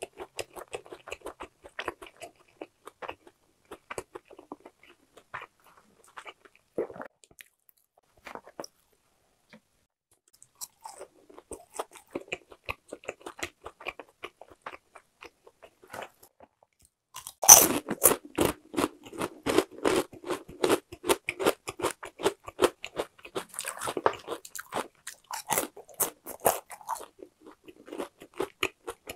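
Close-miked crunching of crispy boneless fried chicken being chewed. The crunching is light for the first half, with a brief lull, then turns much louder from a sharp crunch a little past halfway.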